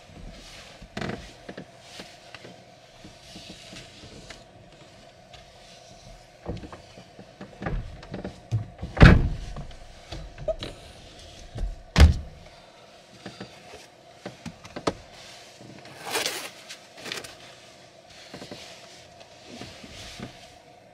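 A person moving about and climbing onto a bed platform inside a pickup truck's camper shell: scattered knocks, thumps and rustling of clothing and bedding. Two heavy thumps about nine and twelve seconds in are the loudest. A faint steady hum runs underneath.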